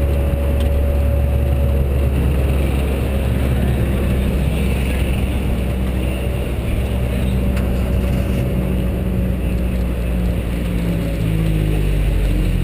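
Mazda MX-5 Cup car's four-cylinder engine running steadily as the car rolls slowly, the note changing pitch near the end.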